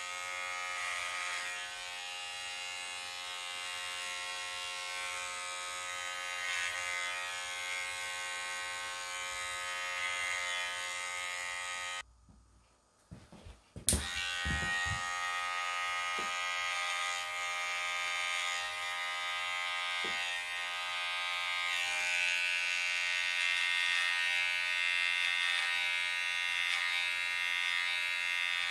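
Cordless hair clippers buzzing steadily while cutting short hair over the ear with a number-two guard. Just before the halfway point they switch off for about two seconds, with a few soft handling knocks, then click back on and run again.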